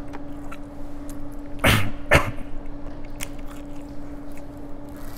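A man coughing hard twice, about half a second apart, because a swallow went down the wrong way.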